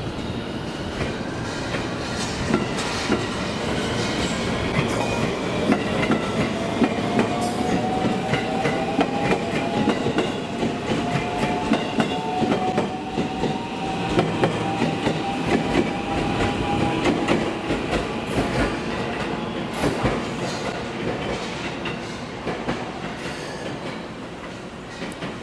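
JR West 223 series electric train pulling away from the platform: wheels clacking over rail joints, with the traction motors' whine rising slowly in pitch as it accelerates. The sound fades near the end as the train leaves.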